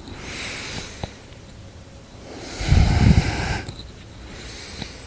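A person breathing deeply and slowly: a soft inhale at the start, a loud exhale about two and a half seconds in lasting just over a second, and another soft inhale near the end.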